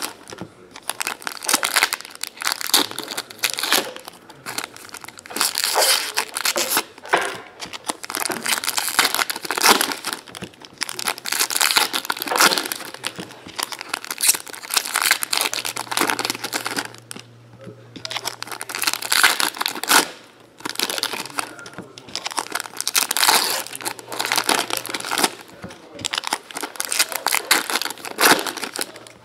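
Foil trading-card pack wrappers crinkling and tearing as packs are ripped open by hand, in repeated bursts with short pauses between packs.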